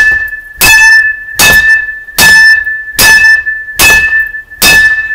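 Baseball bat hitting a clear polycarbonate surfboard fin box seven times in quick succession, about one blow every 0.8 s. Each hit is sharp and loud and leaves a ringing tone that hangs on between blows and dies away after the last.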